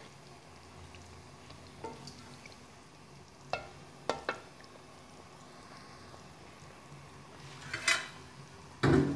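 Wooden spoon stirring a pot of simmering dal, knocking against the aluminium pot a few times so that it rings briefly. There is a quiet bubbling hiss underneath, a burst of crisp ticks near the end, and a louder thump just after it.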